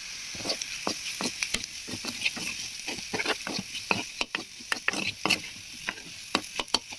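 Steel spatula stirring diced potatoes in a hot, oiled kadai, clinking and scraping against the pan many times at an uneven pace over a steady sizzle of frying oil.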